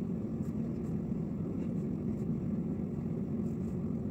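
Steady low hum of background noise with no distinct events.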